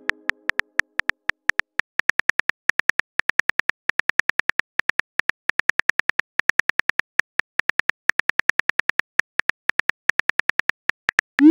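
Phone keyboard typing sound effect: rapid, uneven key clicks, about seven a second, as a text message is typed out. Just before the end, a short rising swoosh as the message is sent.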